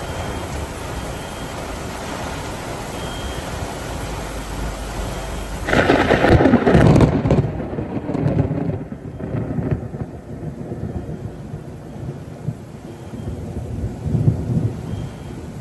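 Heavy rain hissing steadily. About six seconds in, a loud close thunderclap cracks and rolls off into low rumbling over the next few seconds, with further rumbles near the end.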